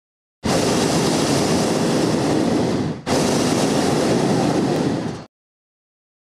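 Hot air balloon's propane burner firing in two long blasts of loud, even rushing noise, broken by a brief dip about three seconds in and cutting off abruptly.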